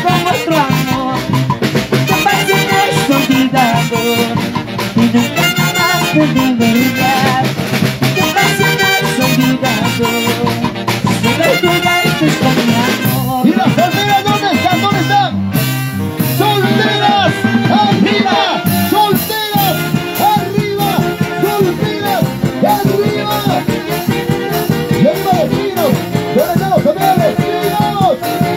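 A live Peruvian huayno orchestra playing an instrumental stretch: saxophones and clarinets carry the melody over a steady beat.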